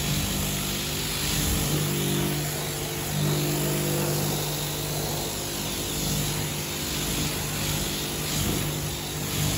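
AVA of Norway P80 electric pressure washer running steadily, its pump humming while the lance jet hisses and spatters against a car wheel and wheel arch. Fed from a water butt instead of mains, it runs at lower pressure: "not as powerful".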